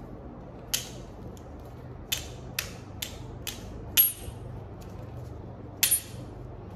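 Sharp, uneven clicks and snaps from handling the hard Otterbox Exo Edge Apple Watch case, about seven in all. The loudest comes about four seconds in and a quick double click comes near the end.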